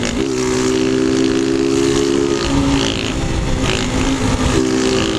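Motorcycles with loud aftermarket 'de lata' (tin-can) exhausts running hard at high revs. The engine note is held steady for about two seconds, eases off briefly, then climbs back and holds again near the end.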